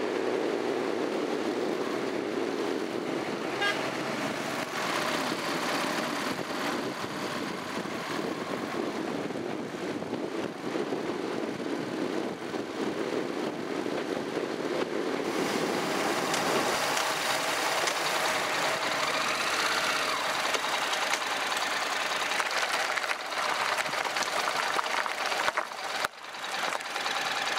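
Honda NC700X parallel-twin motorcycle under way, its engine mixed with steady wind and road noise on a bike-mounted camera. About halfway through, the low rumble thins out and the noise turns hissier. It dips briefly near the end.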